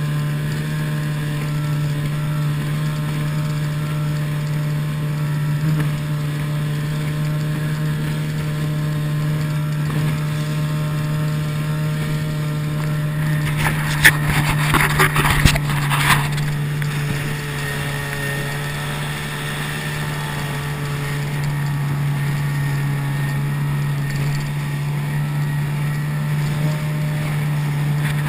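Outboard motor of a small inflatable boat running at a steady speed under way, a constant drone. About halfway through, a brief burst of sharp knocks and slaps as the hull hits the chop.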